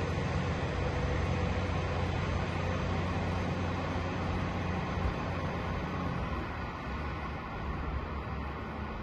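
Train pulling away along the track, its low running hum fading and dropping out about six seconds in, over a steady rushing background noise.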